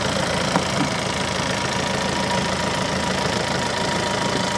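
An engine running steadily, with a thin steady high tone over it and a single click about half a second in.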